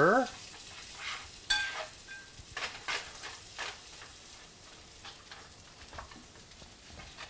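Chopped prosciutto and onion sizzling in butter in a nonstick frying pan, stirred with a plastic slotted spatula that scrapes through the pan, with a sharp knock about a second and a half in.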